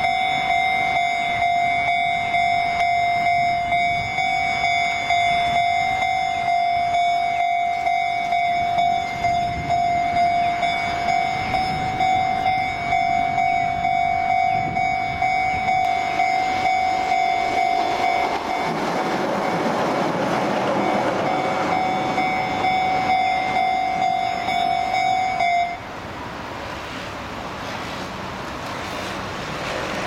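Japanese level-crossing alarm ringing in rapid repeated dings while a Keihan Otsu Line train rumbles over the crossing about two-thirds of the way through. The alarm cuts off suddenly near the end as the crossing clears, leaving road traffic noise.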